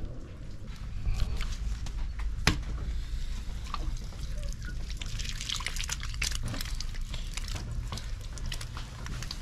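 Wet clay squelching and slapping under a potter's hands as he presses and shapes it on a spinning kick wheel, with scattered wet clicks that come thickest in the second half and a sharp knock about two and a half seconds in, over a steady low rumble.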